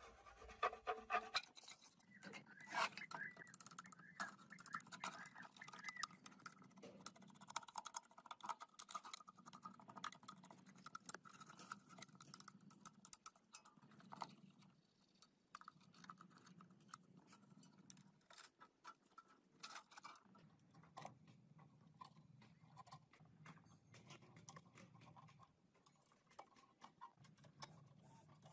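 Faint, irregular clicks and scratches, like small hand work on metal parts, over a faint low hum.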